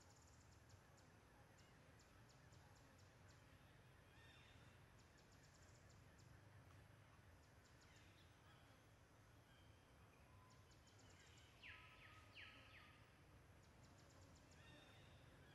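Near silence: faint outdoor ambience with repeated trains of rapid high chirps and a couple of short, slightly louder calls about twelve seconds in.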